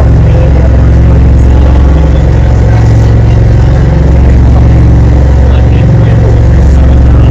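Tour boat's engine running steadily with a loud, low drone.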